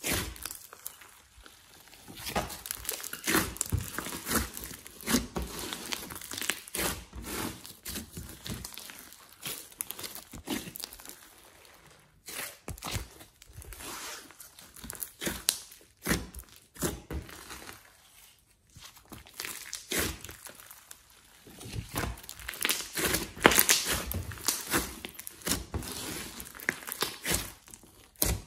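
Hands kneading, folding and pressing glossy slime mixed with clay, giving sticky squishing and crackling pops in bursts a few seconds long, with short pauses between.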